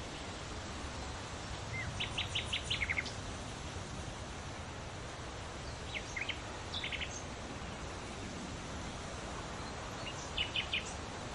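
A small songbird calling in quick runs of high chirps, three times, over a steady rushing hiss of outdoor background noise.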